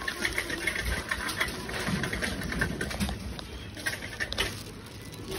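Shopping cart being pushed across a supermarket floor, its wheels and wire basket rattling with many small irregular clicks over a low rumble.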